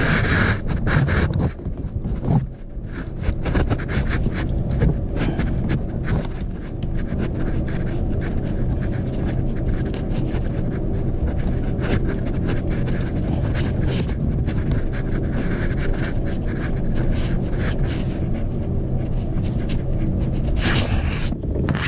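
Heavy breathing close to the microphone over a steady low rumble, with scattered small clicks from hands working on the starter terminal and its wiring.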